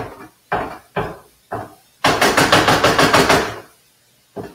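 Hand masher striking ground meat in a skillet to break it up so it will brown: four knocks about half a second apart, then a fast run of quick strikes for about a second and a half, and one last knock near the end.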